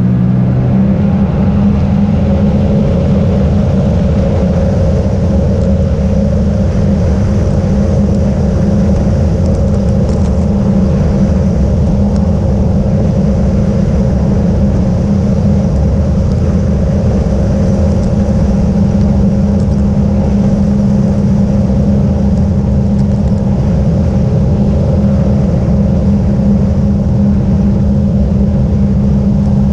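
Jet ski engine running steadily at cruising speed, a loud constant drone that settles to an even pitch about a second in.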